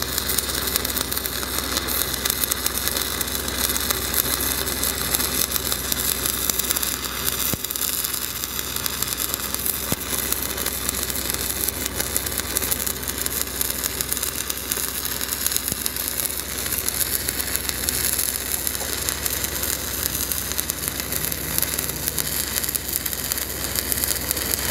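Stick-welding arc from an 8010 cellulose pipeline electrode, a steady, dense crackle and sizzle as the bead is run downhill around a steel pipe joint. A steady engine hum runs underneath, typical of an engine-driven rig welder.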